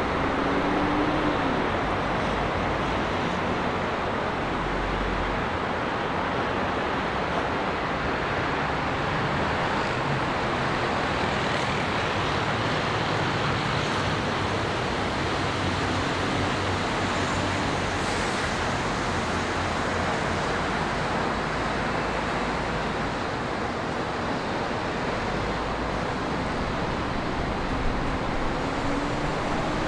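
Steady roar of city road traffic, a dense wash of tyre and engine noise from a busy multi-lane avenue. A single vehicle's engine note rises briefly near the start and again near the end.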